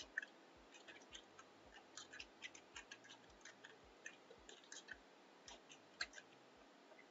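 Faint typing on a computer keyboard: irregular key clicks, about three or four a second.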